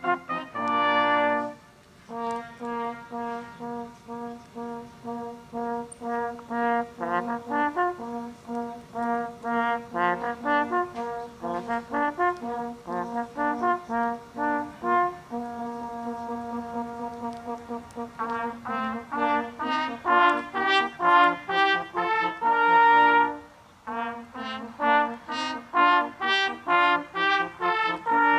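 Brass music playing a lively tune of quick, short notes over lower held notes, pausing briefly twice.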